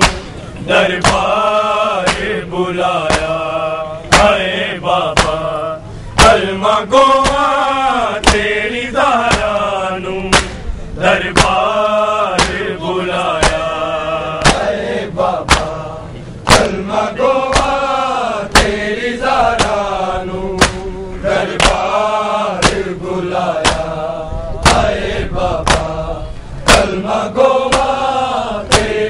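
Noha, a Shia lament, chanted by a group of men, with sharp, steady slaps of bare-chested matam (chest-beating) keeping the rhythm.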